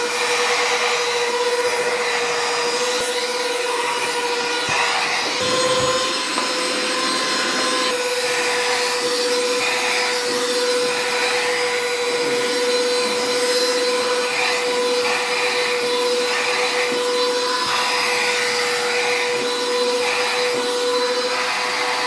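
AIRSEE cordless handheld vacuum cleaner running steadily: a high motor whine over an airflow hiss, with rough rubbing as the nozzle drags over the surface. The whine's pitch steps up slightly about six seconds in.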